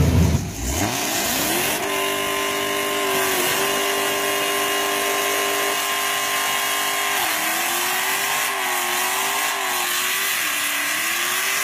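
Dodge Charger doing a burnout: the engine revs up and is held at high revs while the rear tires spin. About seven seconds in, the pitch starts to waver up and down as the throttle is worked.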